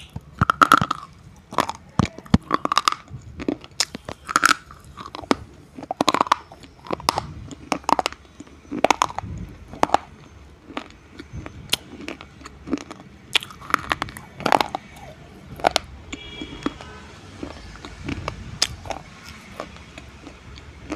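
Meenakshi-brand slate pencils being bitten and chewed close to a microphone: sharp, irregular crunches that grow sparser and fainter after about sixteen seconds.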